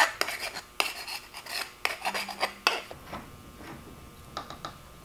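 Small hand file rasping the cut edge of a black ABS pipe fitting, deburring it so it fits cleanly before gluing. A quick run of scraping strokes for the first two and a half seconds or so, then a few light clicks and taps.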